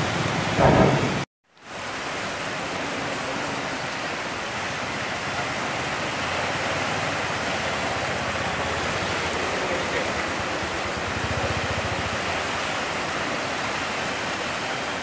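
Fast-flowing floodwater making a steady rushing hiss. The sound cuts out suddenly for a moment about a second and a half in, then resumes unchanged.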